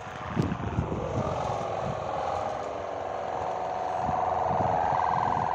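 The bow hummer (sendaren) of a large Javanese gapangan kite droning in the wind as the kite climbs: a steady buzzing tone that swells louder about four seconds in. Wind buffets the microphone underneath.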